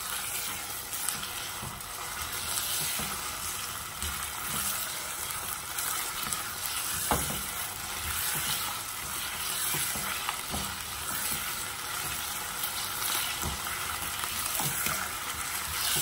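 Raw chicken pieces sizzling in hot oil in a non-stick saucepan as they are browned, stirred with a silicone spatula. Steady frying hiss with soft scrapes and the odd knock of the spatula on the pan, one sharper about seven seconds in.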